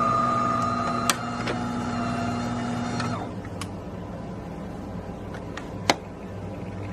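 DeLonghi Magnifica S espresso machine running a motor, a steady whine over a low hum that cuts off about three seconds in, with a sharp click about a second in and another near the end.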